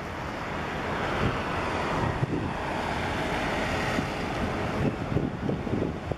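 Wind buffeting the microphone over a steady rush of churned sea water beside a passing container ship. The rush swells in the first few seconds, and the wind grows gustier near the end.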